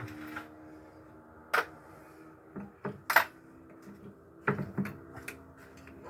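Irregular metal clinks and knocks of steel gearbox parts being handled while a Ford Pampa 4x4 transmission is taken apart, with gears and synchronizer parts worked off the mainshaft. The clinks come singly at first, then in a short cluster past the middle, over a faint steady hum.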